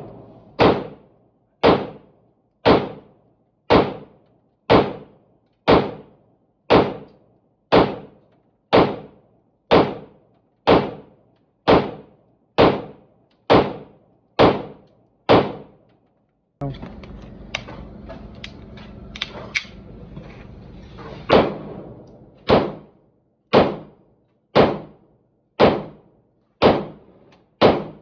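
Loud, deep percussive booms, one almost exactly every second, each ringing briefly. About two-thirds of the way through they stop for some four seconds, leaving a steady background noise with a few light clicks, then the booms pick up again at the same pace.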